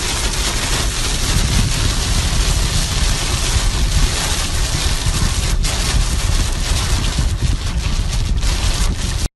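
Heavy rain coming down hard: a loud, steady hiss with a low rumble beneath it, which stops abruptly just before the end.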